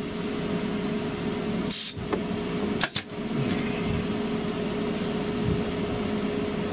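Arrow PT50 pneumatic staple gun firing into foil insulation and wood: a short burst of air hiss, then about a second later a sharp double clack. Both sound over a steady machine hum.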